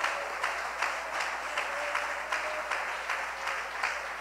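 Congregation clapping together in a steady rhythm, about three claps a second.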